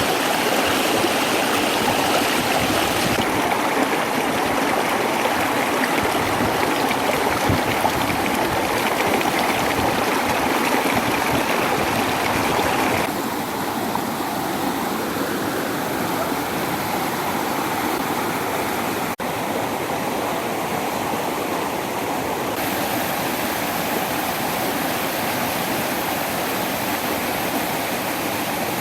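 Waterfall: a steady rush of falling water. Its tone shifts abruptly a few times, and there is a brief dropout about two-thirds of the way through.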